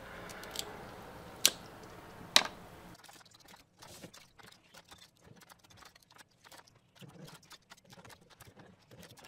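Faint clicking and crunching of cooked crab shell being cracked and picked through by hand for bits of shell and cartilage: two sharper clicks early on, then, after the background hum drops suddenly about three seconds in, a run of small, light ticks.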